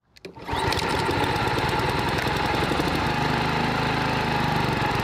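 A few clicks, then the Stihl FS55RL line trimmer's small two-stroke engine running steadily.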